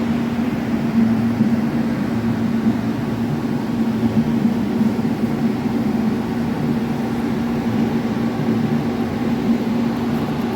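Steady machine hum with one strong low tone, unbroken throughout.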